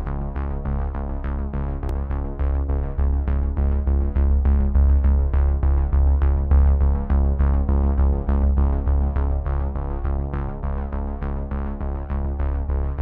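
Electronic background music with a steady beat under held synthesizer tones.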